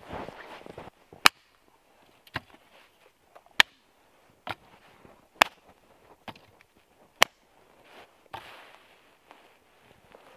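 Wood being chopped for a campfire: a run of sharp, short cracks about once a second, with some rustling at the start and near the end.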